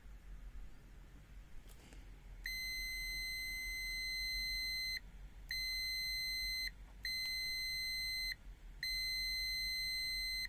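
LOMVUM DM616 multimeter's continuity buzzer giving a steady high-pitched beep four times, each a second or more long with short gaps, starting about two and a half seconds in. The beep signals continuity: the test leads are making contact and the meter reads about 0.6 ohm, well under its 30-ohm beep threshold.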